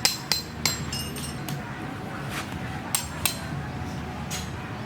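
Hammer blows on metal with a short ringing clink: four quick strikes in the first second, then a few more spaced out, with a pause in the middle.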